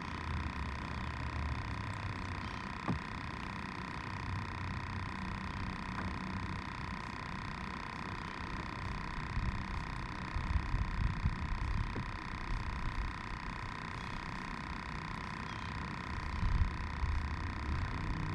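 Wind rumbling on the camera microphone in irregular gusts, strongest about ten seconds in and again near the end, over a steady thin whine. One sharp click comes about three seconds in.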